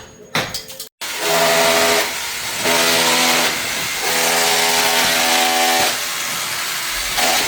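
Concrete saw cutting into a concrete slab: a loud grinding hiss with the saw motor's steady whine coming and going three times as the blade bites. It starts suddenly about a second in and stops near the end.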